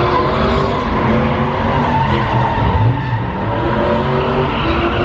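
Car engines running hard with tires squealing, as in a burnout.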